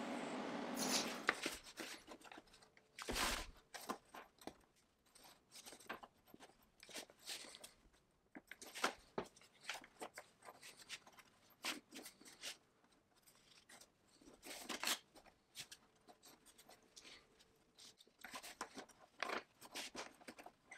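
Hand work on small parts at a workbench: irregular scrapes, clicks and crunches. A steady hiss stops about a second in.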